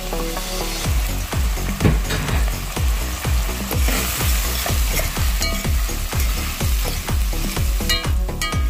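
Food sizzling and being stirred in the cooking pot, over background music with a steady bass beat of about two beats a second.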